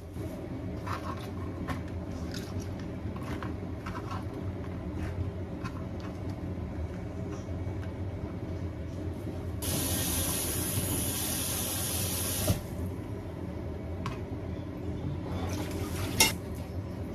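Kitchen tap water running for about three seconds as snap peas are rinsed in a plastic colander, stopping suddenly, with light clicks of handling before and after and a sharp knock near the end. A steady low hum lies under it all.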